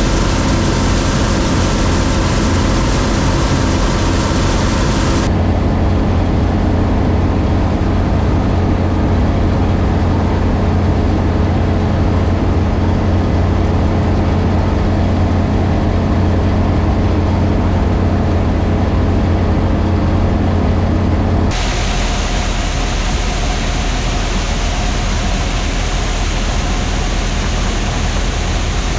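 John Deere 3300 combine running steadily under load, its engine and harvesting machinery giving a loud, even drone. The sound changes abruptly twice, about five seconds in and again about twenty-one seconds in.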